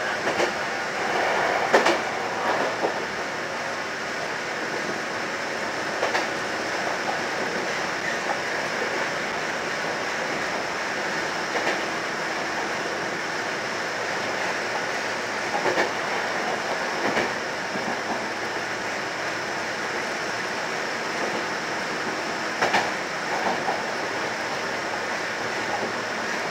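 Kotoden electric train running along the track, heard from the driver's cab: a steady rolling noise broken by an occasional clack of the wheels every few seconds.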